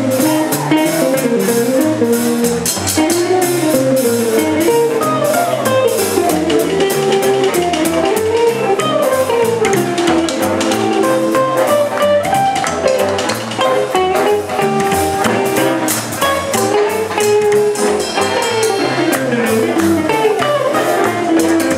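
Live jump-blues band playing: a hollow-body electric guitar carries a single-note solo line over a walking bass line and swinging drums with cymbals.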